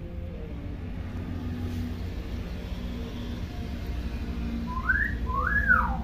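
Hill myna giving two clear whistles about five seconds in, the second rising and then falling in pitch, over a steady low background rumble.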